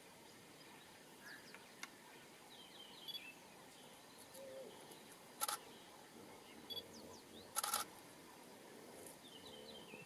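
Faint open-air quiet with small birds chirping now and then. It is broken by sharp clicks, once about five and a half seconds in and as a quick double near eight seconds.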